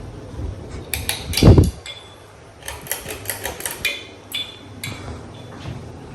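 Ceiling fan with a bad capacitor giving a low steady hum, broken by a scatter of sharp clicks and knocks, one loud thump about a second and a half in, then a quick run of clicks.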